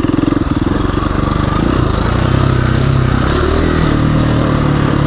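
KTM 350 EXC-F dirt bike's single-cylinder four-stroke engine running under way. Its revs drop in the first second or two, then it runs steadily at lower revs.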